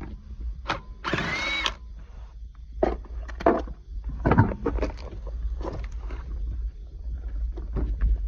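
Brake work on a 2013 Honda Accord: a short mechanical whir about a second in, then irregular metallic clinks and knocks of tools and brake parts being handled.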